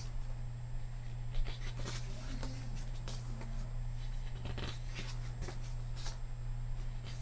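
Glossy photo-book pages being turned and handled, with soft, scattered paper rustles and slides over a steady low hum.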